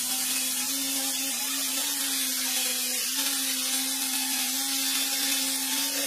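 Handheld electric angle grinder running steadily against a metal machine housing: a constant motor whine with a loud hissing scrape from the disc on the metal.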